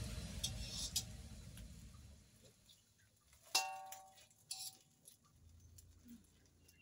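Background music fading out, then a metal utensil clinking against a metal wok a few times. The loudest strike, about three and a half seconds in, rings briefly.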